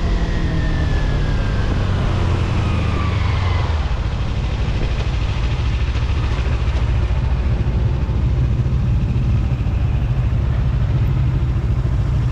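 Vehicle engine running with a steady low rumble. Over the first few seconds a whine falls in pitch, then the sound holds steady.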